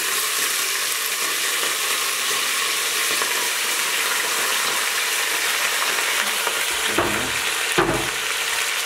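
Goat meat frying in hot oil in an aluminium pressure cooker, a steady sizzle. A couple of dull knocks come about seven seconds in.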